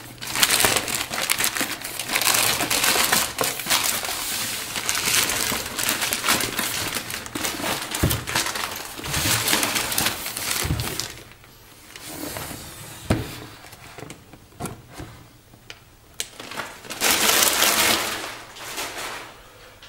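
Packaging rustling and crinkling as a cardboard shipping box is pulled from its wrapping and handled, with a few soft knocks of the box in the middle and a louder spell of rustling near the end.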